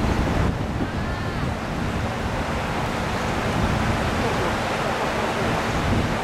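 Wind buffeting the microphone, a steady low rumble over the wash of river water.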